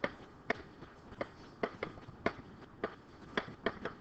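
A stylus pen clicking and tapping against a writing surface while handwriting words, about a dozen sharp, short clicks at uneven spacing.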